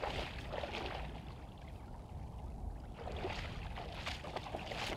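Shallow water splashing and sloshing around a wader's legs, in two spells: one in the first second and one from about three seconds in, with a steady low rumble underneath.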